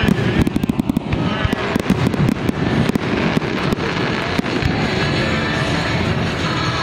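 Fireworks display: aerial shells bursting, a quick string of bangs and crackles in the first second or so, then scattered single bangs.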